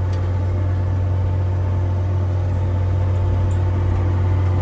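First-generation Case IH Steiger 9380 Quad Trac tractor's diesel engine running steadily as the tractor drives, heard from inside the cab as an even low drone.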